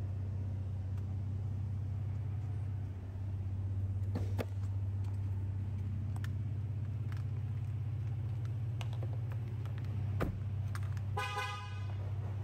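A Ford F-150's 3.5L twin-turbo V6 idling with a steady low hum. A few knocks from the door about four seconds in and a heavier one just after ten seconds, then a short horn toot near the end.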